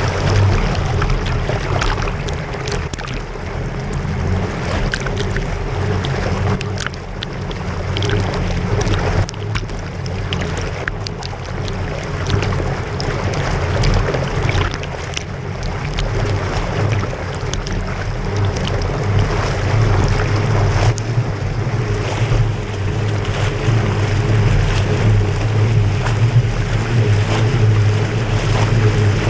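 Bicycle wheels pushing through deep flood water on a trail, with steady sloshing and splashing and many small splashes, and wind buffeting the microphone.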